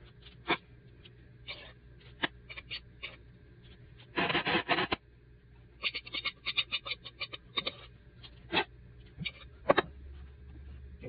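Big spoon scraping and tapping while scooping no-bake oat cookie mixture onto parchment paper and flattening the mounds: a run of short scrapes and knocks, with a longer dense scrape about four seconds in and a quick string of taps a couple of seconds later.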